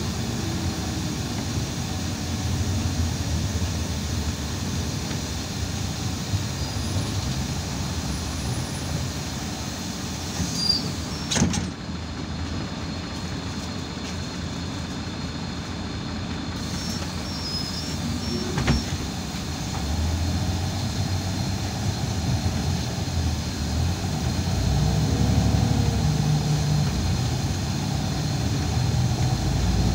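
Irisbus Citelis 12 m city bus heard from inside the cabin: steady engine rumble and road noise, broken by two sharp clacks about seven seconds apart near the middle. After the second clack the engine gets louder and stays louder.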